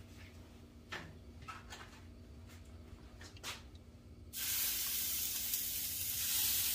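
A few light clicks and knocks, then about four seconds in a sudden hiss as a ball of ground beef lands on a hot buttered Blackstone griddle at searing temperature, sizzling steadily from then on.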